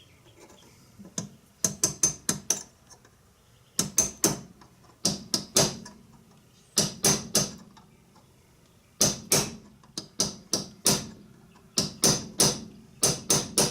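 Hammer tapping a pin punch against metal parts of an animatronic head mechanism, in quick bursts of three to five sharp, ringing taps with short pauses between them.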